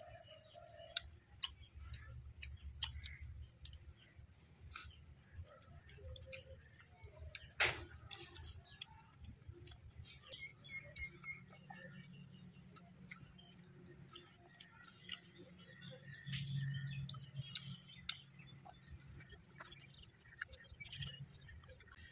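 Quiet hand-eating sounds as rice and fish are mixed and eaten from a banana leaf: scattered mouth clicks, lip smacks and chewing, with one sharper click a little under eight seconds in.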